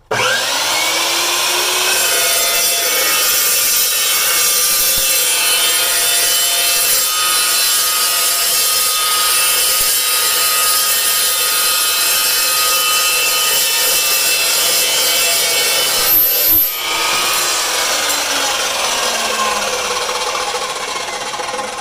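Evolution EVOSAW380 dry-cut metal chop saw with its 14-inch steel-cutting blade, cutting through 2-inch schedule 40 steel pipe. The motor spins up with a rising whine and the blade grinds steadily through the heavy-wall pipe for about 16 seconds. A couple of knocks mark the end of the cut, then the motor is let off and winds down with a falling whine.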